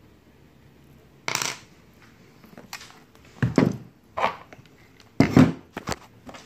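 Small hard parts knocking and clattering on a tabletop: several separate sharp knocks, the loudest about three and a half and five seconds in.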